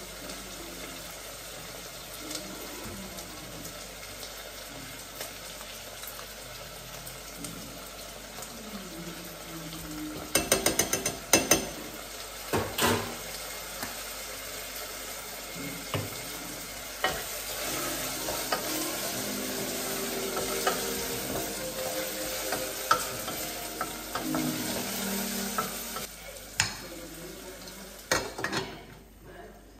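Diced vegetables sizzling in a stainless steel pot while a wooden spoon stirs them. A quick run of clicks comes about ten seconds in, and single knocks of utensils on the pot follow now and then, the last as the metal lid is handled over the pot near the end.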